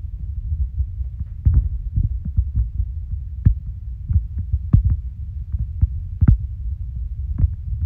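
A low throbbing rumble with scattered sharp clicks and taps, from a cat pawing at a cardboard box and licking itself right beside the microphone.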